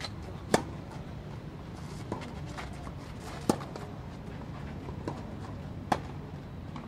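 Tennis ball struck by rackets in a clay-court rally: three sharp, loud racket hits about two and a half to three seconds apart, with fainter hits from the far side of the court in between.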